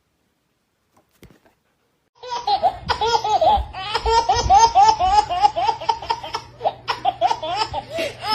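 About two seconds of near silence, then high-pitched laughing: a long run of quick, repeated 'ha' sounds.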